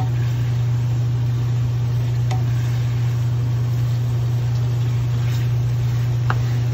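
Steady low hum with an even hiss from a running kitchen appliance over the stove, with a couple of light taps of a wooden spatula against the wok as the pasta is stirred.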